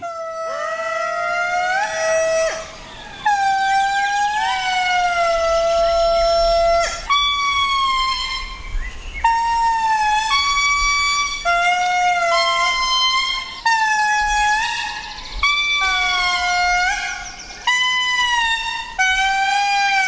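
Indri singing their territorial song: a chorus of long, piercing wails, each note sliding up into a held tone lasting one to three seconds, with two or more voices overlapping and short breaks between phrases.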